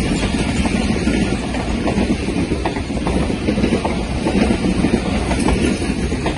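Passenger coaches of an express train running past on the near track: a loud, steady rumble and rattle of steel wheels on the rails.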